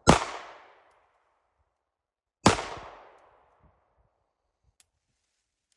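Two pistol shots about two and a half seconds apart, each echoing away over most of a second, followed by a couple of faint clicks.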